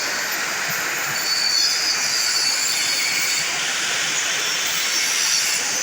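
Steel pipe being cut in a fabrication shop: a steady hiss with a faint, wavering high-pitched squeal.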